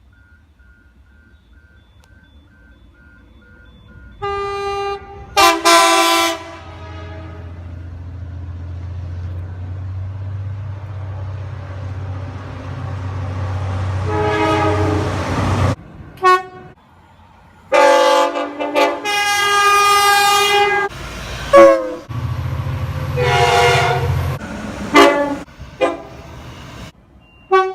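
Train horns from several trains, spliced one after another: a horn sounds about four seconds in, then a train passes with a low rumble and a rising rush before another horn blast. After abrupt cuts, several more horn blasts follow, some long, some short toots.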